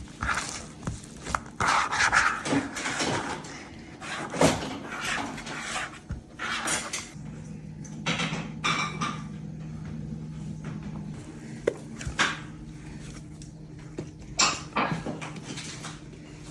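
Dough being worked by hand in the kitchen: irregular knocks, rustles and soft squelching handling sounds, with a steady low hum joining about seven seconds in.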